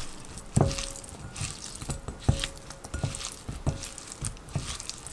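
Irregular knocks and clinks of kitchen utensils, about eight in five seconds, several of them leaving a short ringing tone.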